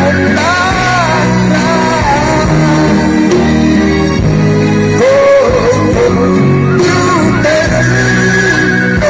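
A song: a singing voice carries a wavering melody over steady band backing.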